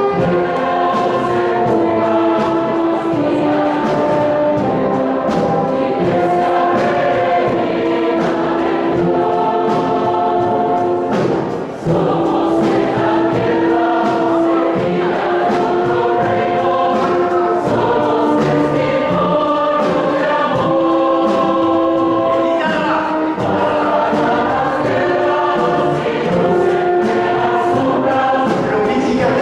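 A choir singing in several parts, holding long sustained notes, with a brief dip in loudness about twelve seconds in.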